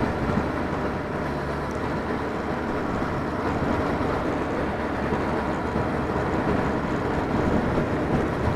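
Steady running noise of a vehicle on the move: a low engine hum under an even rush of wind and road noise.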